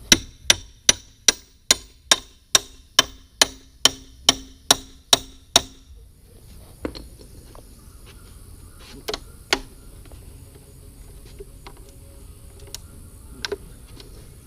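Hammer blows on metal: about fourteen evenly spaced strikes, a little over two a second, each ringing briefly, then a few scattered knocks and taps.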